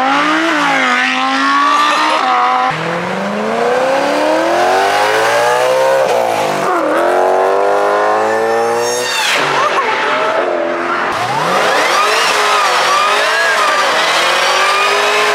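Several performance cars accelerating hard past one after another, each engine revving up through the gears in rising sweeps. In the last few seconds a Cadillac CTS-V sedan's supercharged V8 is revving as its rear tyres screech and smoke in a sliding burnout.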